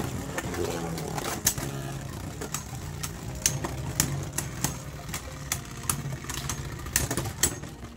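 Two Beyblade Burst spinning tops whirring against each other in a plastic stadium: a steady low whir broken by many short, sharp clacks as they strike.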